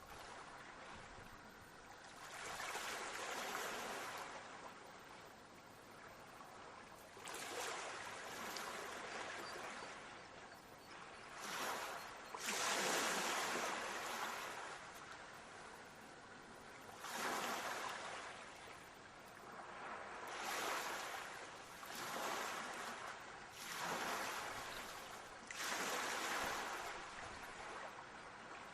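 Sea waves breaking and washing onto a shore, coming as a string of hissing swells that rise and fade every few seconds, the loudest about halfway through.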